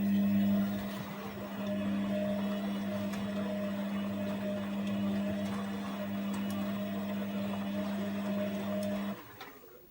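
Washing machine motor running with a steady low hum, as it turns the drum, cutting off sharply about nine seconds in.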